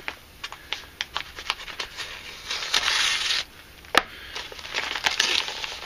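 A plastic mailer being slit open with a Buck 110 folding knife: scratchy cutting and crinkling of the plastic with scattered small clicks, a longer rasping stretch around three seconds in, and one sharp click about four seconds in.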